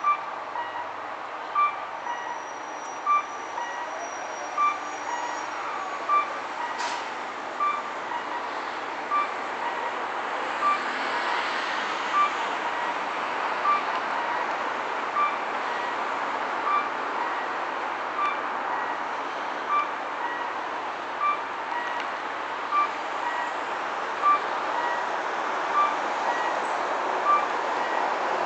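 Diesel railcar running steadily at a standstill, under a short electronic beep that repeats about every second and a half.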